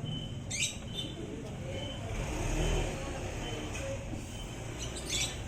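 A live fish making two short, high, bird-like squeaky chirps, about five seconds apart, over a low vehicle rumble that swells midway.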